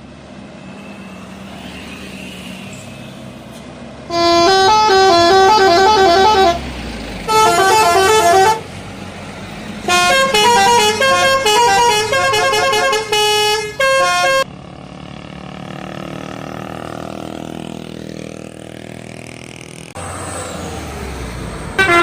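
Bus telolet horn, a multi-trumpet horn, playing quick melodic runs of notes in three loud bursts, starting about four, seven and ten seconds in, the last lasting about four seconds. Between the bursts there is steady engine and traffic noise.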